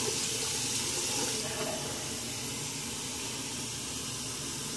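Hot-water tap running steadily into a sink, slightly louder for the first second or so.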